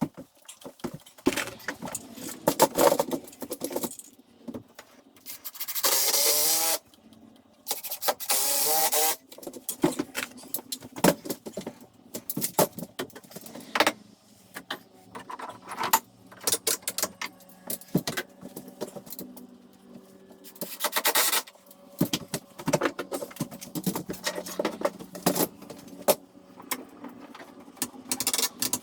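Carpentry work: irregular knocks, taps and clatter of wood and tools, with two bursts of a power tool about a second long each, roughly six and eight seconds in.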